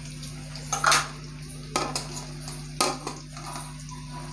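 A metal spatula clanking and scraping against a metal kadai while turning fried potato wedges: a loud clank about a second in, then two more near two and three seconds, over a steady low hum.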